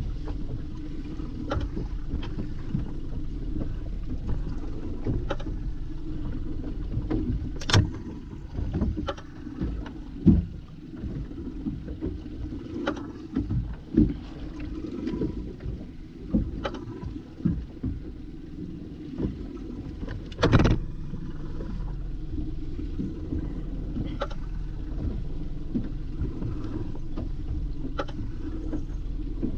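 Fishing boat's motor running steadily, with a dozen or so sharp knocks over it; the loudest and longest knock comes about two-thirds of the way through.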